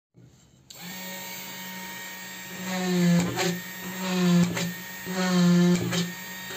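Homemade drill's 775 brushed DC motor starting about a second in and running with a steady hum. From about three seconds in it surges louder in repeated pulses, roughly one a second, each with a short click.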